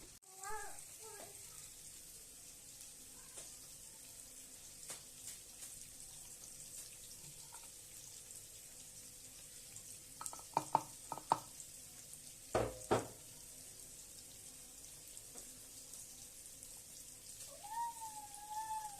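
Food frying in hot oil, sizzling steadily, with a few sharp knocks, like a utensil against the pan, clustered about ten to thirteen seconds in.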